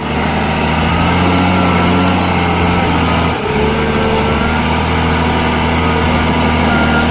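Stump removal machine's engine running steadily under load, a low even drone with thin whining tones over it, dipping briefly about three seconds in.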